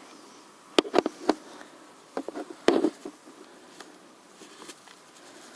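Handling noise from a camera and fisheye lens: a few sharp clicks and knocks about a second in and again between two and three seconds, over a faint steady buzz.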